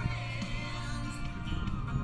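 Music playing.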